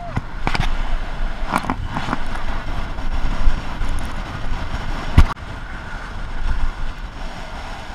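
Wind rushing over the microphone with a low road rumble while riding a bicycle on asphalt, broken by a few sharp knocks and rattles, the loudest about five seconds in.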